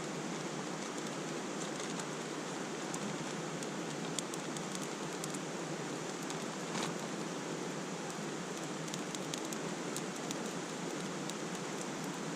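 Steady rushing of a mountain stream flowing past, an even hiss of water with a few faint ticks and crackles scattered through it.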